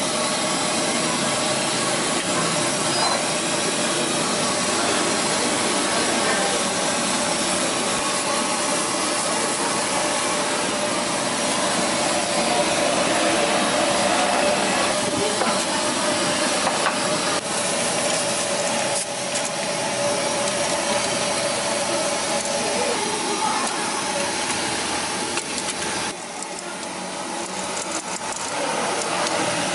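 Steady hiss of a large stall pot of noodle water at the boil, steaming, with noodles cooking in wire strainer baskets.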